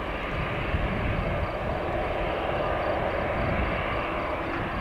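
Jet airliner engines running at low taxi power: a steady rushing noise over a low rumble.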